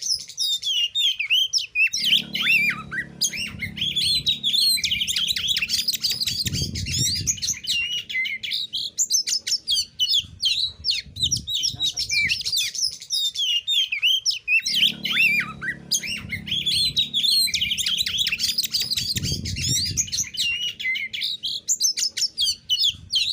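Oriental magpie-robin (kacer) singing a rapid, unbroken run of high chirps, trills and whistled glides, the same passage repeating about every 13 seconds. A low hum sits underneath twice, about two seconds in and again about fifteen seconds in.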